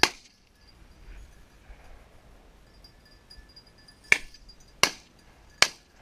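Four shotgun shots: one right at the start, then three in quick succession, about three-quarters of a second apart, near the end.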